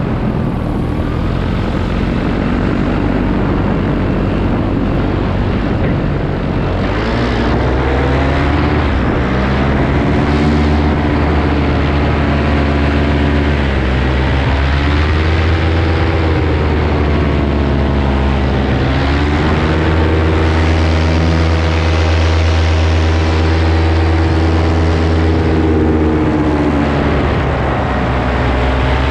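Paramotor engine and propeller running in flight, loud and continuous, its pitch rising and falling several times.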